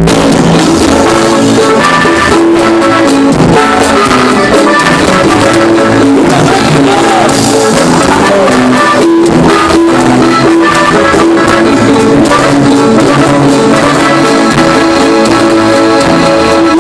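A live band on stage playing Latin music with drum kit and guitars, heard loud through the hall's PA from inside the crowd.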